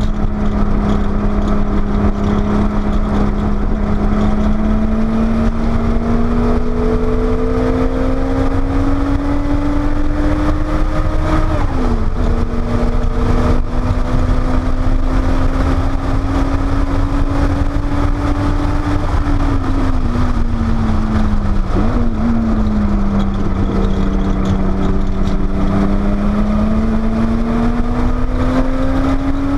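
Porsche 930 Turbo's air-cooled turbocharged flat-six heard onboard at track speed, pulling slowly up through the revs with an upshift about twelve seconds in. It climbs again, drops in revs from about twenty seconds as the car slows, then pulls once more, with another upshift at the very end. A steady low rumble runs underneath.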